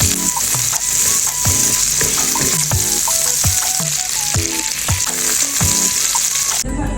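Green beans and minced meat sizzling as they are stir-fried, a steady hiss that cuts off suddenly near the end. A music track with a regular beat plays over it.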